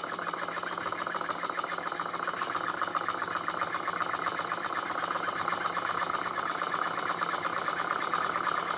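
Aibecy hot-air Stirling engine with a glass cylinder, run on an alcohol burner: a fast, steady mechanical rattle from its piston, linkage and flywheel. It grows gradually louder as the engine speeds up with the glass cylinder still heating.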